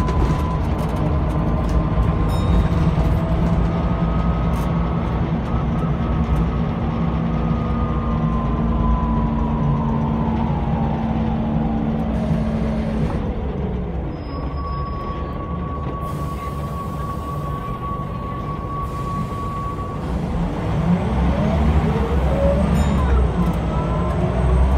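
Scania L94 bus's rear-mounted diesel engine and driveline, heard from inside the passenger saloon. The pitch falls as the bus slows, a steady tone holds for several seconds about halfway through, then the pitch rises again as it pulls away near the end.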